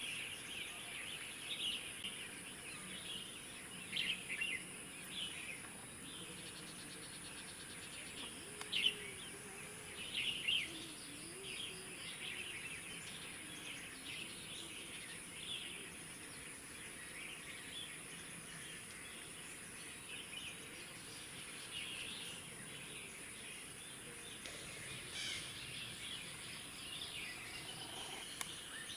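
Natural ambience of small birds chirping in many short calls, scattered and irregular, over a steady high-pitched insect hiss.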